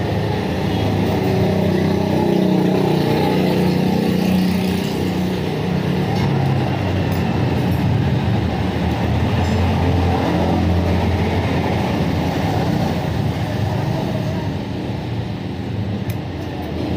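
An engine running steadily, a low hum whose pitch drifts a little.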